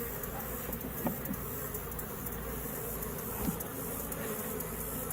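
Honey bees buzzing around an open hive as a steady hum, with a couple of faint knocks.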